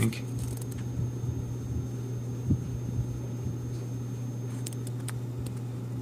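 Steady low background hum, with a few faint clicks, the clearest about two and a half seconds in.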